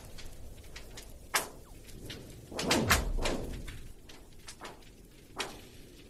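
Clear lake ice cracking under a skater: sharp cracks that trail off in falling, laser-like tones. The loudest is a close pair about three seconds in, with single cracks at about one and a half and five and a half seconds.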